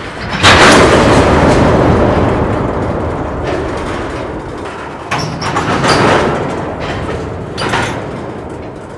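Freight car couplers banging as the train's slack is taken up. The loudest bang comes about half a second in and dies away over several seconds, a second bang follows about five seconds in, and a smaller one near the end.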